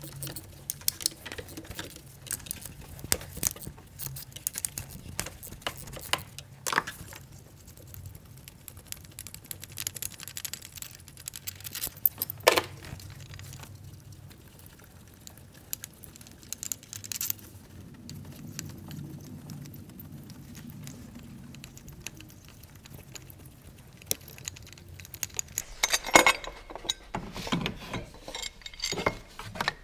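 Scattered metallic clinks, taps and rattles of tools and loosened bolts as an aluminium timing-belt support bracket is unbolted and worked out of a car's engine bay, with a busier run of clatter near the end. A faint low hum lies underneath for most of it.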